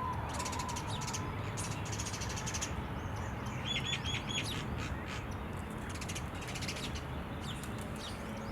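A flock of Indian silverbills calling: several high, buzzy, rapid trills and a run of four quick repeated notes about four seconds in, over a steady low rumble.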